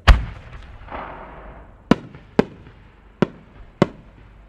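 Large 10-inch aerial firework shells: a deep boom at the start, a brief crackling hiss about a second in, then four sharp separate bangs over the next two seconds.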